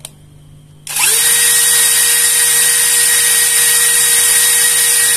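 A click, then about a second in a Kamolee 10 mm brushless cordless drill starts up and runs at full speed with no load, a steady whine at about 1,480 rpm.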